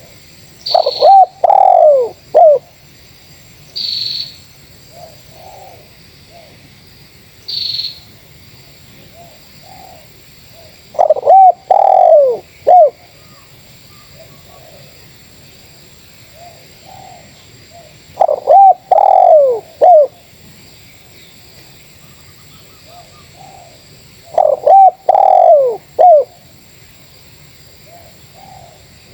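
Spotted doves cooing back and forth: four loud cooing phrases of a few notes each, roughly every six seconds, with fainter coos from another dove in between. A few short high chirps come in the first eight seconds, over a faint steady high tone.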